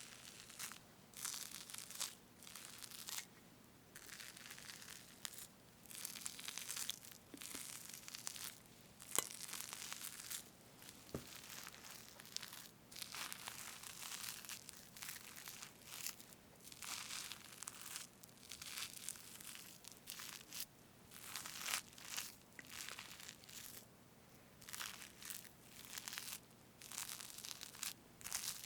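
Fresh whipped cream on a strawberry cake being parted and cut through, close to the microphone: a string of soft, short, hissy squelches, one after another.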